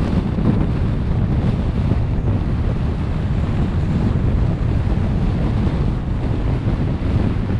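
Steady wind and road noise from a car being driven, a dense low rumble with no distinct tones or knocks.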